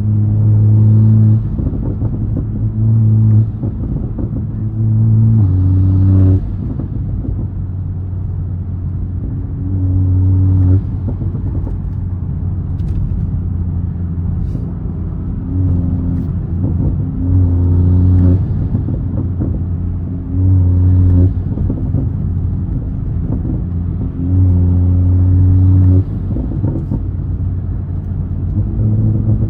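Toyota Supra's turbocharged engine and catless, single-exit exhaust heard from inside the cabin while driving: a steady low drone whose pitch holds level, then shifts in steps, repeatedly swelling louder for a second or two as the throttle is pressed and dropping back as it is lifted.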